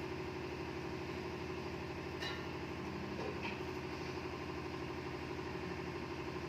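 A steady, low machine hum, like a motor or fan running, with faint ticks about two and three seconds in.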